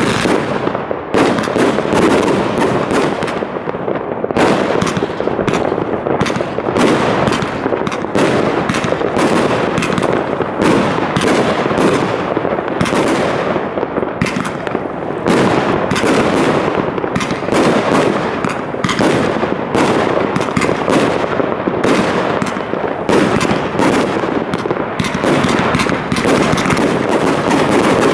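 Consumer firework cakes (multi-shot batteries) firing in a continuous barrage: launches and aerial bursts follow one another several times a second, with no pause.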